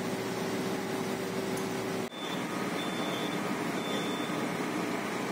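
Steady hum and rush of a ship's bridge: ventilation and machinery noise. It drops out briefly about two seconds in, and afterwards a faint high tone comes and goes.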